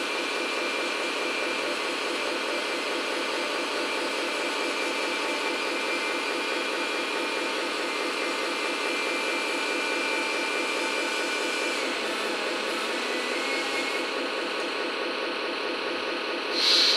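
Hydraulic pump of an RC truck's tipper trailer whining steadily as the tipper body lowers. A brief, louder hiss comes near the end as the body settles down.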